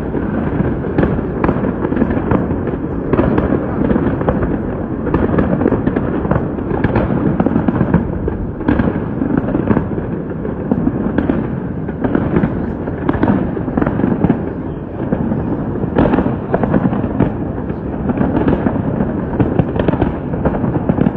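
Aerial fireworks display going off continuously: many irregular overlapping bangs and crackles over a steady low rumble, with no pause.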